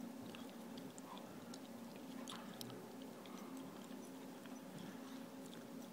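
Faint steady hum of a roomful of running computers, with scattered light clicks and ticks.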